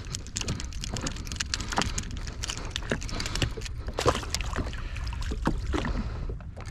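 Water lapping and slapping around a jet ski's hull, with many small irregular knocks and clicks over a steady low wind rumble on the microphone.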